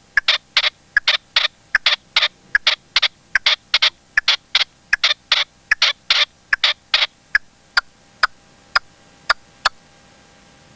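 Caged red-legged partridge decoy calling: a rapid run of sharp, loud notes, two to three a second, that thin out and weaken after about seven seconds and stop near the end.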